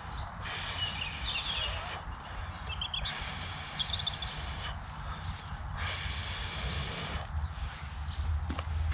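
Long breaths blown into a smouldering tinder bundle to coax a flint-and-steel ember into flame: a rushing breath noise repeated several times with short pauses between blows. Small birds chirp now and then in the background.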